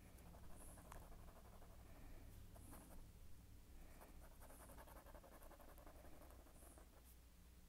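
Faint scratching of a black felt-tip pen drawing short strokes on paper, with soft breaths close to the microphone about every two seconds.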